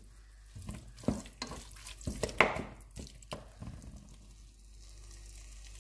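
Spatula scraping and knocking against the pan while turning onion-tomato masala, a few irregular taps in the first three seconds, then a faint frying sizzle that grows slightly near the end as the heat is raised.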